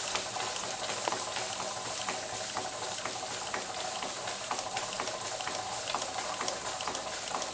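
Stuart model beam engine running on live steam from a gas-fired boiler: a steady hiss with faint, irregular light ticks through it.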